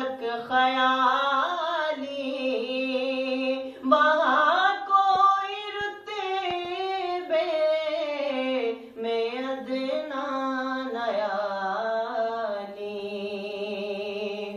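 A man singing an Urdu naat (Islamic devotional song) solo and unaccompanied, holding long notes with melismatic ornaments.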